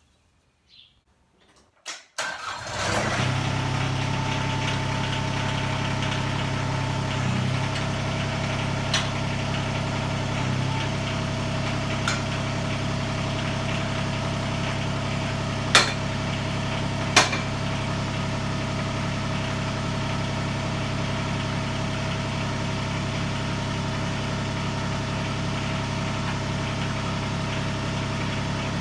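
LS MT122 subcompact tractor's diesel engine starting about two and a half seconds in, then idling steadily, with a few sharp clicks over the top.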